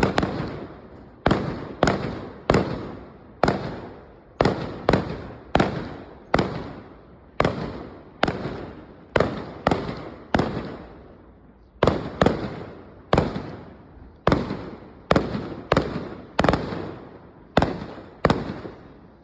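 Fireworks going off in a steady volley: sharp bangs about one or two a second, each trailing off in a rolling echo.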